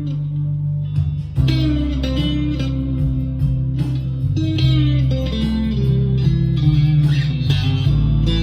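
Chapman ML1 electric guitar played through an amplifier over a backing track, a run of picked notes over a steady bass line.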